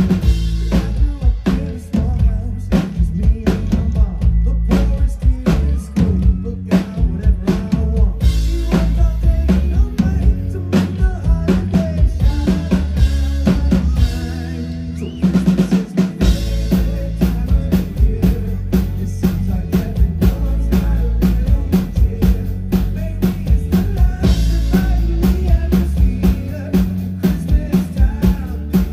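Live pop-rock band playing loud over a PA, with a driving drum kit and steady bass line. The full beat drops out briefly about halfway through, then comes back in.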